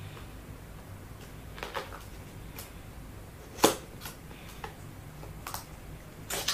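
A microphone's retail box being handled and opened by hand: scattered light clicks and taps, the sharpest about three and a half seconds in.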